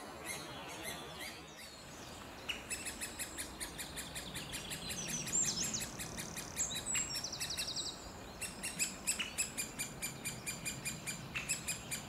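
Great spotted woodpecker nestlings begging at the nest hole: a fast run of short, high, repeated calls, several a second, which falls away briefly in the middle and then starts again. Another bird's quick trill is heard briefly in the middle.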